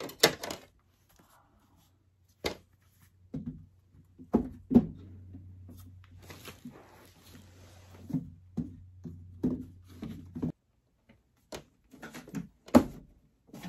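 Filter panels and plastic housing of an air purifier being handled and fitted together: a string of knocks, clicks and taps, with a stretch of rustling in the middle. A low steady hum runs underneath and stops about ten seconds in.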